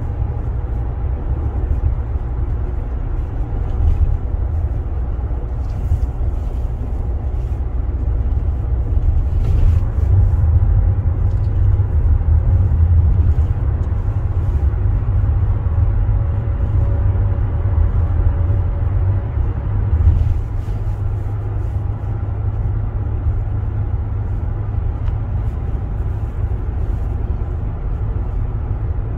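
Steady low rumble of road and engine noise inside a car's cabin while cruising at highway speed, swelling slightly about a third of the way in.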